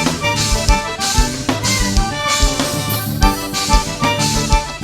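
Instrumental break of live vaquejada forró band music: a drum kit keeps the beat with kick drum and cymbals under a sustained melodic lead, with no singing.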